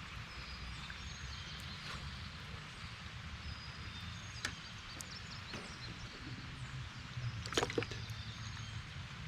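Outdoor ambience: a steady low rumble, with short high chirps, likely birds, and a few sharp light clicks, a small cluster of them about three-quarters of the way through.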